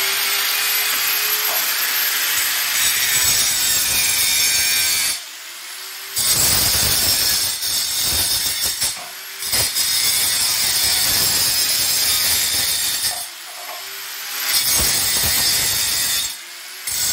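Angle grinder cutting through a PVC water pipe: a loud, steady, hissing grind as the disc bites into the plastic. The cutting noise drops away briefly three or four times and then resumes.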